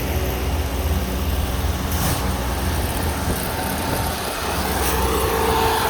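Small railroad maintenance machines running along the tracks: a steady, low engine rumble, with a faint steady whine coming in near the end.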